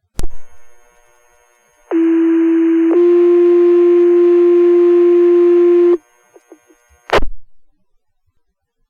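Two-tone sequential fire pager alert over the dispatch radio: a steady low tone for about a second, then a second tone held about three seconds, the signal that sets off the fire station's volunteer pagers. Short radio key-up clicks about a quarter second in and again about seven seconds in.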